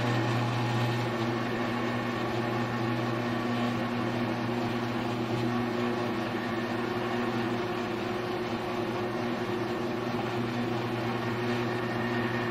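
Grizzly G1007 mill-drill running with a boring head turning in the spindle: a steady motor hum, a little louder in the first second.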